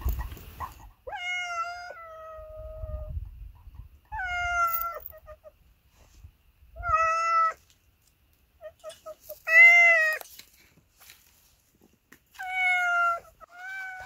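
Two domestic cats meowing back and forth: six drawn-out meows a couple of seconds apart, some sliding down in pitch at the end. One cat is calling and the runaway cat is answering as it comes out of hiding.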